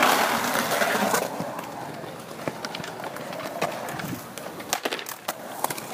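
Skateboard wheels rolling on concrete, a rush of noise in the first second, then scattered sharp clacks and knocks of boards and wheels, with faint voices in the background.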